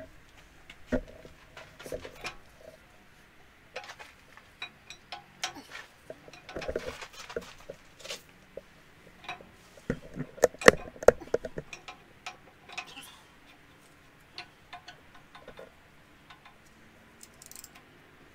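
Scattered metal clinks, taps and knocks of hand tools and engine parts at the camshaft gear of a Cummins 5.9 24-valve diesel, with a quick run of sharp clicks about ten to eleven seconds in.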